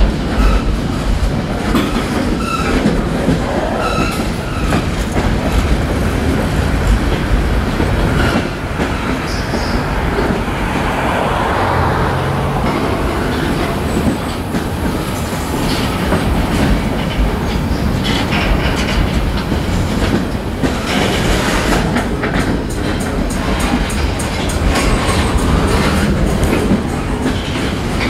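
Freight cars rolling past in a steady rumble of wheels and rails, with a running clickety-clack of wheels clicking over rail joints that comes thickest near the end.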